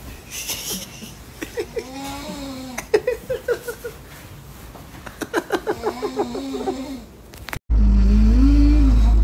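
A person snoring loudly, with two long snores that flutter in fast rattling pulses. After a brief drop-out near the end, a loud steady low rumble cuts in.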